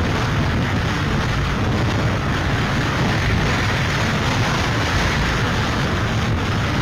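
Hurricane wind and driving rain, a loud, steady rush with a deep rumble from the wind buffeting the microphone.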